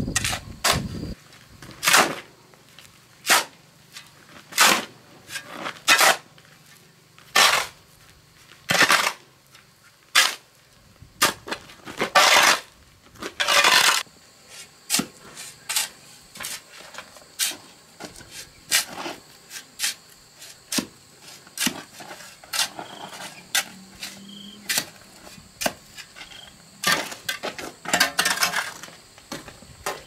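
Steel shovel blade scraping and striking a concrete slab while dry-mixing sand and cement, in short strokes about once a second with a few longer drawn-out scrapes.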